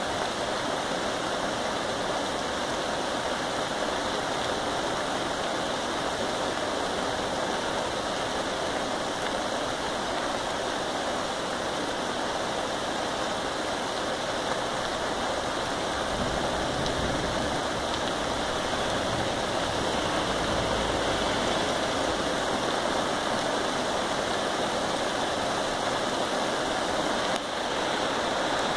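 Steady rain falling outdoors, a continuous even hiss, with a low rumble rising under it about halfway through.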